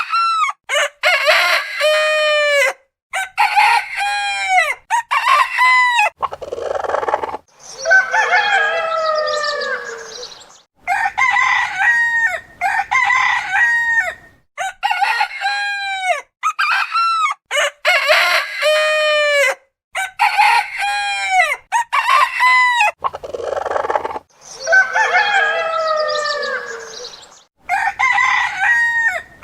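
Domestic roosters crowing one crow after another, many crows in a row with short silent gaps between them. The pitch and voice change from crow to crow, and a couple of the crows are rougher and hoarser.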